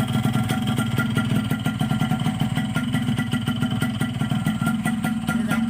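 Yamaha RX-King's single-cylinder two-stroke engine, freshly rebuilt on a ported Thai YP2 block, idling steadily with a rapid even beat.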